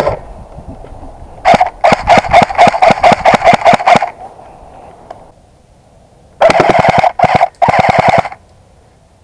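Airsoft M4A1 rifle firing: a quick string of shots at about six a second, then, near the end, two denser bursts of rapid fire with a short break between them.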